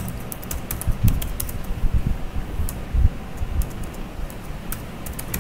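Computer keyboard keys tapped at an irregular pace while a word is typed and corrected, over a steady background hum and a few soft low thumps.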